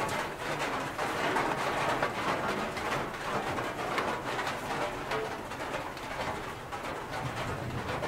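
Steady rain with many close drops tapping and pattering, and pigeons cooing over it.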